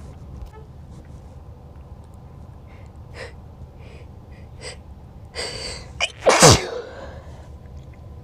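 A person sneezing once, loudly, about six seconds in. Before it come a few faint short breaths and a noisy half-second intake of breath, and the sneeze's voiced tail drops sharply in pitch.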